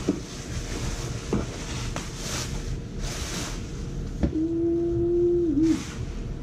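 Bubble wrap rustling and crinkling in several short bursts as a suspension fork is pulled out of its plastic sleeve. Midway there is a steady held tone about a second and a half long.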